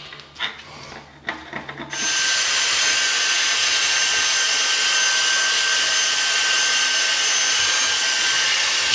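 A few light clicks and scrapes, then about two seconds in a cordless stick vacuum with a crevice tool switches on. It runs steadily with a high motor whine, sucking up chipped flange and concrete debris around a toilet drain opening.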